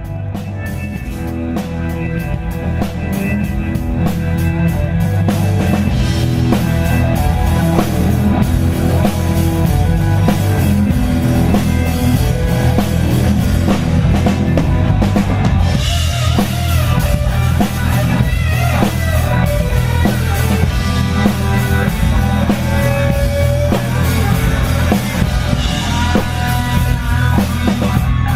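Live blues-rock band playing, drum kit and guitar to the fore, getting louder over the first few seconds and then holding steady.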